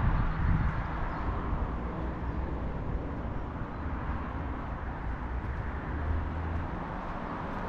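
Steady outdoor street ambience: a hiss of distant traffic with an uneven low rumble underneath.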